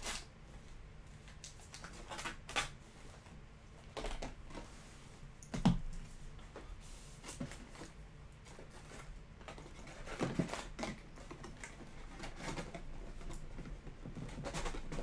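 Wrapped trading card packs being lifted out of a cardboard hobby box and set down on a table, then the empty box being handled and folded: scattered rustles and light clicks of paper and cardboard, with a sharper knock about six seconds in.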